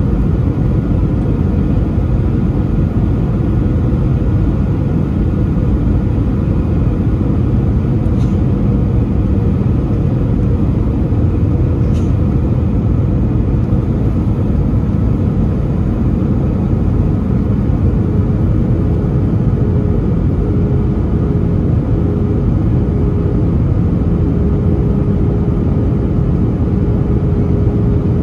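Airbus A320 cabin noise heard from a window seat by the wing: a loud, steady rumble of engines and rushing air during the descent. A faint steady hum joins about two-thirds of the way through.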